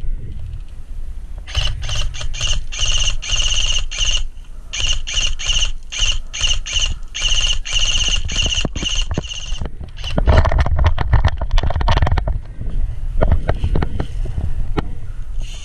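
Airsoft electric gun firing in bursts, a rapid buzzing rattle in short strings and a few longer ones, starting about a second and a half in and going on for about eight seconds. After that come irregular thuds and rustling from the player moving.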